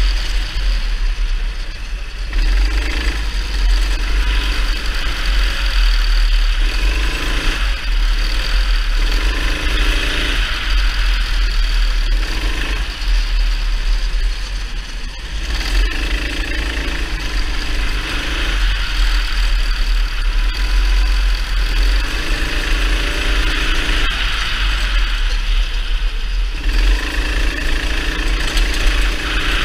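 Kart engine from an onboard camera, revving up and dropping back again and again as the kart accelerates down the straights and lifts for the corners, over a steady low rumble.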